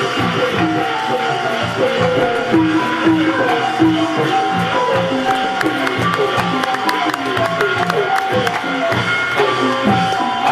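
Traditional Burmese Lethwei ring music: a melody moving in steps over busy drums and sharp percussion strokes.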